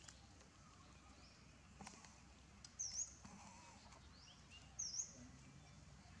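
Two short, high chirps about two seconds apart, each dipping and then rising in pitch, over a quiet background with a few faint clicks.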